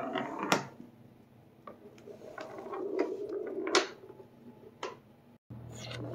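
Glass marble rolling across old hardwood floorboards: a low rumble broken by small clicks as it crosses the board seams, and a few sharp knocks. The sound cuts out briefly near the end and comes back louder.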